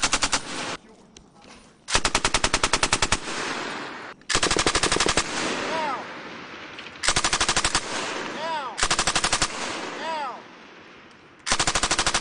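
M240 and M249 belt-fed machine guns firing fully automatic in short bursts: one burst ending just after the start, then five more of about a second each, roughly every two seconds, the last starting near the end.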